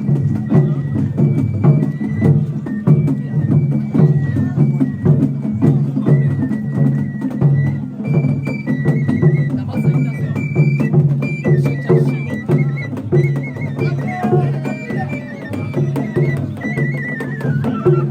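Traditional Japanese festival music: drums beating a steady rhythm, about two to three beats a second, with a high flute melody over them.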